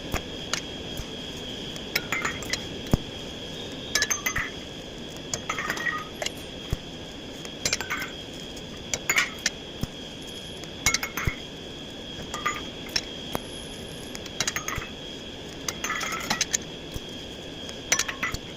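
Light metal-on-metal taps and clinks on steel, in small irregular clusters, each with a short ringing, over a steady high-pitched whine.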